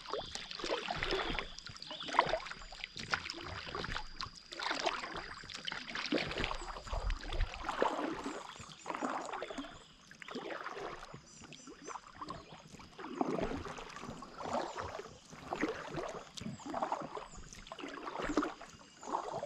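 Kayak paddle strokes splashing in calm lake water beside an inflatable packraft, about one stroke a second.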